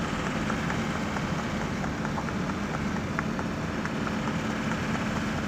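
Steady road and engine noise of a moving car, heard from inside it: a constant rumble and hiss with a low hum and scattered faint ticks.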